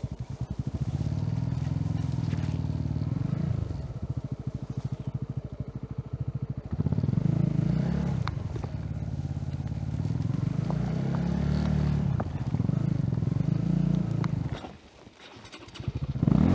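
Honda CB150R motorcycle's single-cylinder engine running at low speed, the throttle opened and eased several times so the engine note rises and falls. Near the end it drops away for about a second, then comes back louder.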